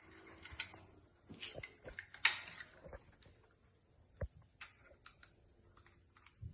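Scattered clicks and clinks of metal hand tools, sockets and a wrench, being handled, with one sharper clink about two seconds in.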